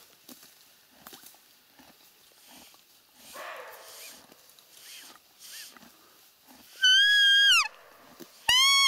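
Faint crunching of a horse cropping grass, then near the end two loud, high, clear calls, each under a second and dropping in pitch as it ends: a roe deer calling.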